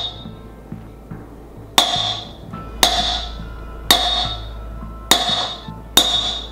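Claw hammer striking a steel socket used as a driver to press a wheel bearing into a Kawasaki ZX-10R wheel hub: five sharp, ringing metal strikes about a second apart, starting about two seconds in, with the bearing still moving in.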